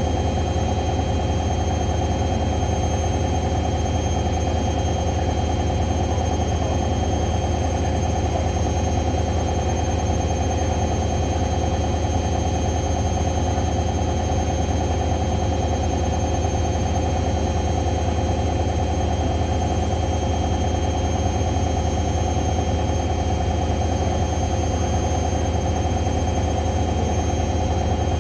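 Hoover washing machine spinning steadily in its spin cycle: a constant low hum and vibration with a steady whine above it.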